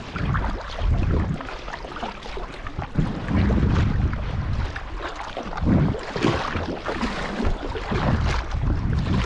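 Sea kayak paddle blades dipping and splashing in the water stroke after stroke, with wind buffeting the microphone in low rumbling gusts.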